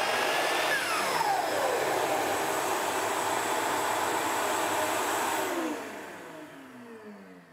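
A 4-gallon shop vacuum running steadily, switched by a relay from the miter saw. The saw motor's whine falls away about a second in as the saw is switched off, and the vacuum keeps running for about five seconds on the relay's shut-off delay to clear the hose, then winds down near the end.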